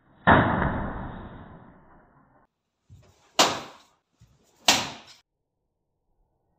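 A karate punch smacks into a newspaper hanging from a stand and knocks it flying: one loud hit that rings out for about two seconds in a bare room. About three seconds in come two more sharp smacks, a little over a second apart.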